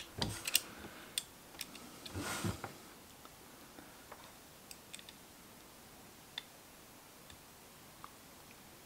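Small sharp clicks and ticks of a tiny screwdriver and small metal parts as a little screw is driven into a miniature replica rifle's handguard. A quick run of clicks comes in the first second, then only a few faint ticks.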